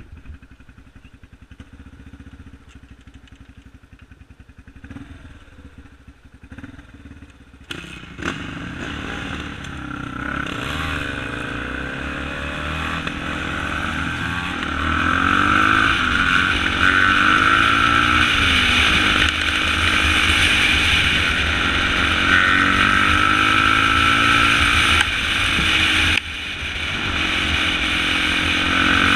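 Yamaha ATV engine idling, then about eight seconds in the throttle opens and the engine gets louder, climbing and dropping in pitch several times as the quad accelerates through the gears. It briefly lets off near the end, then pulls again.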